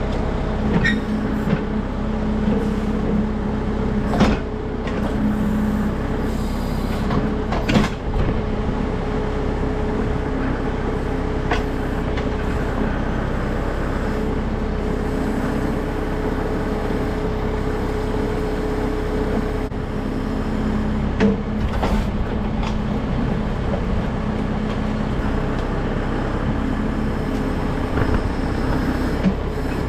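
Kubota M6060 tractor's diesel engine running steadily under work, with a few sharp clanks.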